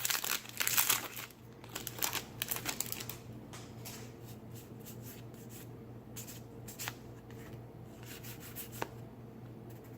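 Trading cards being handled and flipped through: quick rustles and soft slaps of card stock, busiest in the first three seconds, then only a few single clicks over a low steady hum.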